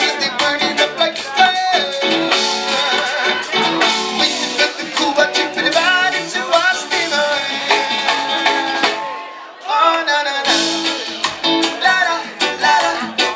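Live band playing: a man singing over electric guitar and drum kit. The band drops out briefly about nine seconds in, then comes back in.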